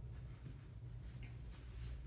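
Quiet room tone: a faint, steady low hum with no distinct sound.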